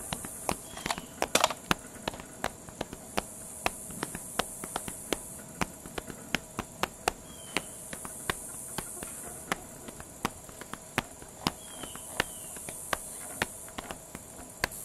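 Outdoor ambience: insects droning high-pitched, swelling and fading, under a steady run of sharp clicks about two to three a second. A couple of faint short chirps come in partway through.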